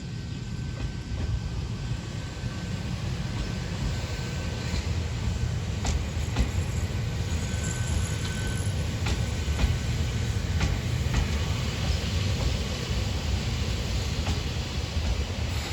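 Ohmi Railway 820 series electric train running into a station, a steady low rumble with scattered clicks of wheels over rail joints, growing gradually louder.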